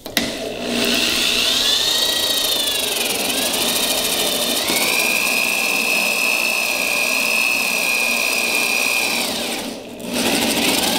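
Corded electric drill with a spade bit boring baluster holes into the painted wooden cap of a knee wall. The motor's whine sags in pitch as the bit bites in a few seconds after starting, then holds a steady, higher whine. It stops about a second before the end and starts up again just before the end.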